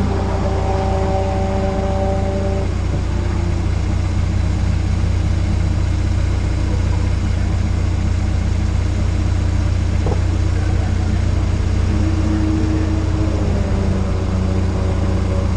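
Car engine idling steadily as a low rumble. A second engine note sits over it for the first few seconds, and another car comes up the pit lane near the end.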